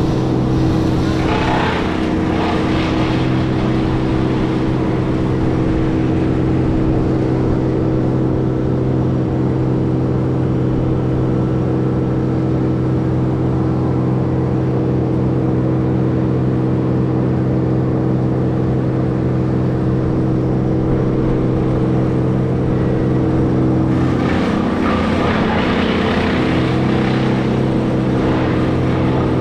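Heavy-equipment diesel engine running at a steady speed, with a heavier, rougher stretch briefly about two seconds in and again for several seconds near the end.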